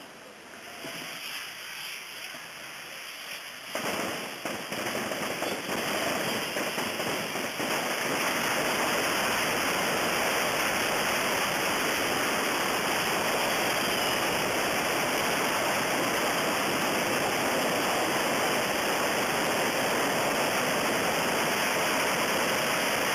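Massed firework rockets hissing as they spray sparks, merging into one continuous rushing roar. It builds about four seconds in and holds steady and loud from about eight seconds on.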